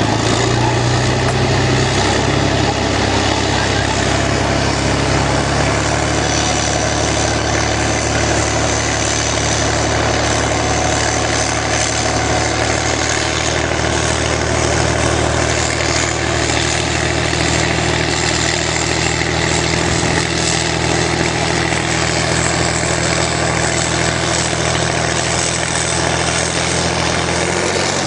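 Heavy diesel engines running steadily and loudly under load: a crawler tractor, then an eight-wheeled heavy tractor truck hauling a very heavy trailer through sand. The engine tone changes about six seconds in.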